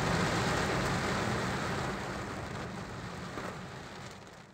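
Heavy rain beating on a moving car's windscreen and roof, mixed with road and engine noise, heard from inside the car. It fades out steadily over the last two seconds or so.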